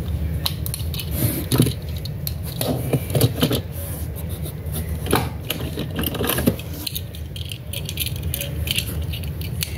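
Die-cast toy cars clicking and rattling against one another and their plastic packages as a hand rummages through a cardboard box of them, in irregular clatters.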